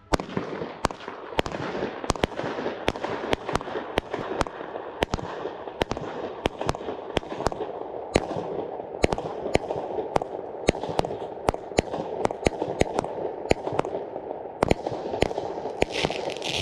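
Weco Fire & Ice consumer fireworks battery firing: a rapid string of sharp shots, about two or three a second, over a steady hiss.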